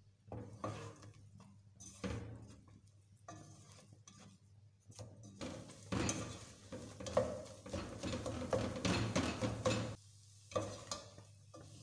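Plastic slotted spatula scraping and stirring scrambled eggs in a nonstick pot, in repeated strokes that get busier about halfway through. Egg frying in oil gives a light sizzle underneath.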